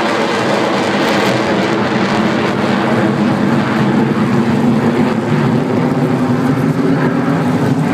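Vickers VC10 jet airliner flying overhead, its four rear-mounted Rolls-Royce Conway engines giving a loud, steady roar with a low drone.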